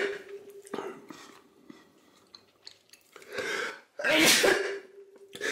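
A man sneezing, his nose stung by ghost pepper cola he has just drunk: a smaller burst about three seconds in, then a loud sneeze just after four seconds, with another starting right at the end.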